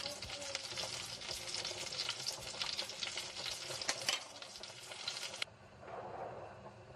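Creamy cheese sauce sizzling in a frying pan on a gas burner as it is stirred with a wire whisk, with a few clicks of the utensil against the pan. The sound cuts off abruptly about five and a half seconds in, leaving a quieter background.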